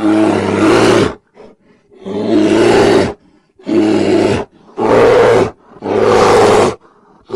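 A large animal roaring, as a recorded sound effect: five loud roars of about a second each, with short pauses between them.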